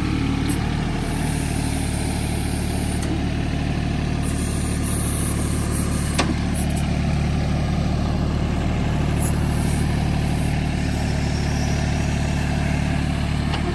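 Mahindra compact tractor's diesel engine running steadily while its rear backhoe digs, with one sharp click about six seconds in.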